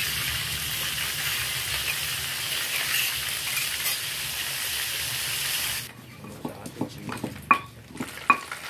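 Spice paste sizzling in hot oil in a wok as it is scraped in from a stone mortar with a spoon. About six seconds in the sizzle cuts off abruptly, and a few sharp clicks and knocks follow.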